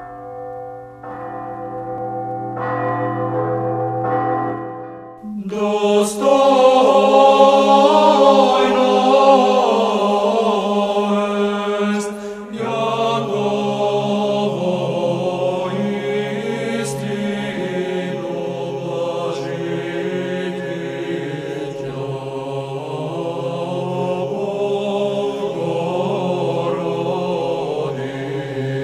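Church bells ringing with long, held tones. About five seconds in, Orthodox church chant by a choir takes over, and from about twelve seconds in it sits over a low held drone, with a few sharp strikes over the singing.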